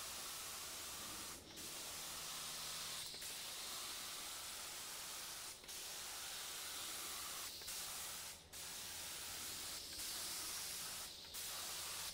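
Paint spray gun spraying grey filler primer in passes: a steady hiss that stops briefly six or seven times as the trigger is released between strokes.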